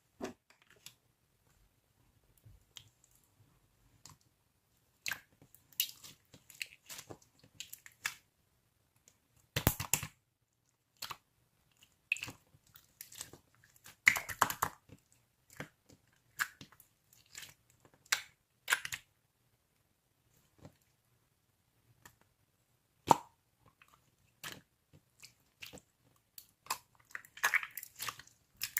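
Slime being worked by hand, giving irregular sticky crackles and pops in clusters, with short quiet gaps between.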